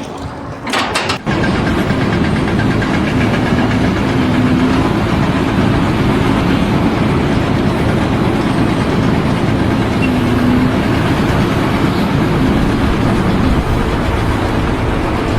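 Large engine running steadily and loudly, after a brief quieter stretch with a few clicks in the first second.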